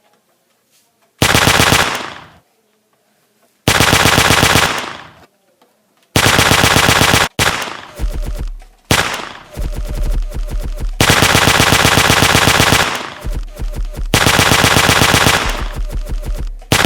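Automatic gunfire sound effects, rapid shots in loud bursts with ringing tails: three short bursts a couple of seconds apart, then almost unbroken firing from about halfway on. The sound is that of real machine guns, laid over toy Nerf and airsoft guns.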